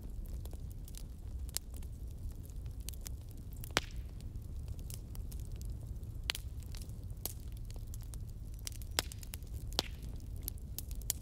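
Fire burning with a steady low rumble and irregular sharp crackles and pops, a few louder snaps standing out.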